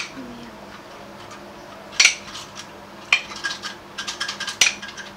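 A knife clinking and scraping against a plate as cake is cut into pieces. There is a sharp clink about two seconds in and another about three seconds in, then a quick run of smaller clicks near the end.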